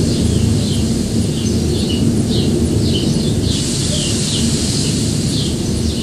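Strong wind rumbling on the microphone, with a small bird chirping over it in short, falling notes repeated about twice a second.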